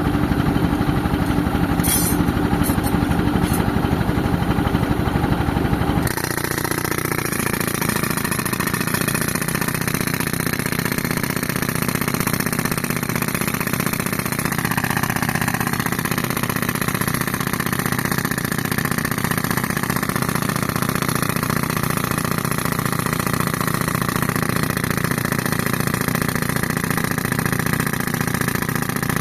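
Tractor engine driving an air compressor, running steadily. About six seconds in the sound changes abruptly to a slightly quieter, smoother running.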